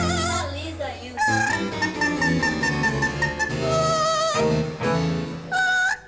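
Blue-fronted amazon parrot singing long, wavering operatic notes, a few held pitches one after another, the last cut off abruptly, over a classical-style instrumental accompaniment.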